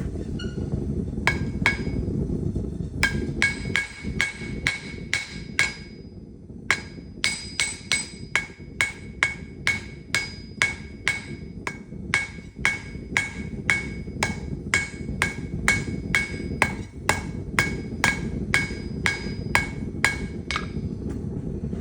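Blacksmith's hammer striking an anvil in a steady rhythm of about two to three blows a second, each blow ringing with a bright, bell-like tone. There is a brief pause about six seconds in. A steady low rumble runs underneath.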